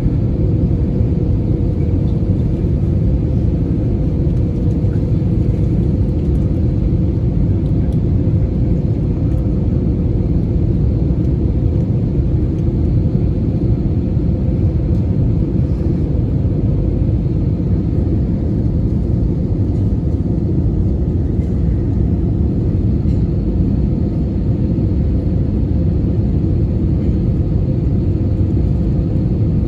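Airbus A320 cabin noise in flight: a steady rumble of jet engines and airflow, with a faint constant hum.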